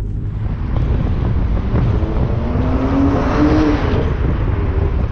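Mitsubishi GTO's twin-turbo V6 driving the car down the road, a steady low engine rumble with road noise; about two seconds in the engine note rises slightly and swells as the car pulls, then eases off near four seconds.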